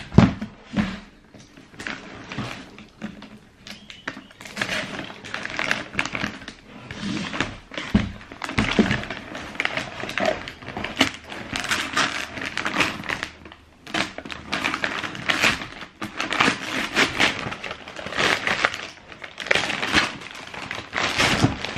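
Irregular rustling and crinkling of paper and cardboard as a pair of trainers is handled and unpacked from a shoebox, with a couple of dull knocks, one near the start and one about eight seconds in.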